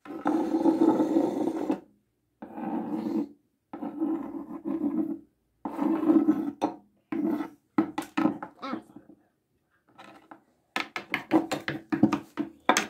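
Small plastic toys being scraped and rubbed along a wooden tabletop, in repeated strokes of about a second each with short gaps between them, coming quicker near the end.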